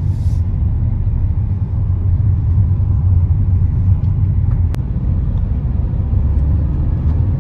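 Steady low rumble of engine and road noise inside a moving car's cabin, with a single light click about halfway through.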